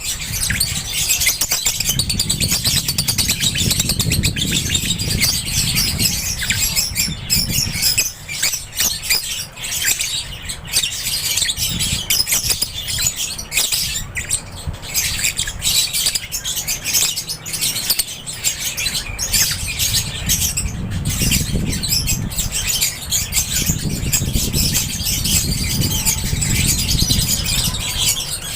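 A flock of African lovebirds chirping and squawking together, a dense, continuous high-pitched chatter, with a low rumble underneath at times.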